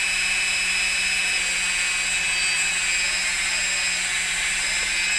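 DJI Phantom FC40 quadcopter's motors and propellers spinning steadily: an even, high whine with a rushing hiss.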